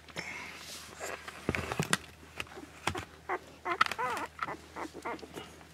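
A 12-day-old Akita puppy squeaking and whining in short, high calls, most of them bunched together in the second half. A few sharp knocks and scrapes come about a second and a half in.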